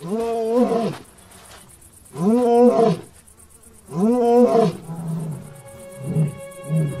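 African lion roaring: three long moaning roars about two seconds apart, each rising and then falling in pitch, followed by a run of short grunts that ends the roaring bout.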